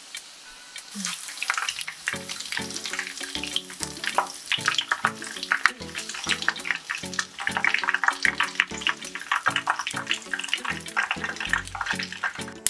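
Oil sizzling and crackling around breaded chicken cordon bleu shallow-frying in a pan, with background music that has a steady beat. The crackling grows denser about a second and a half in.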